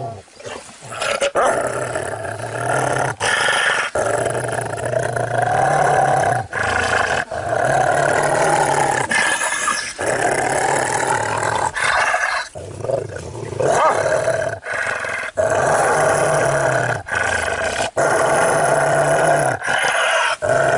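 Large dog growling in long, low rumbles broken by short pauses for breath.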